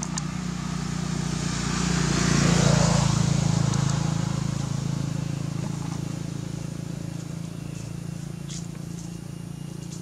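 A motor vehicle's engine passing by, a steady low hum with road hiss that swells to its loudest about three seconds in and then slowly fades away.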